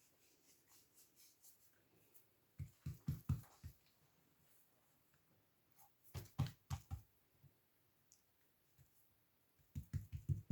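Hands patting and pressing oiled msemen dough on the work surface while folding it: three short runs of quick taps.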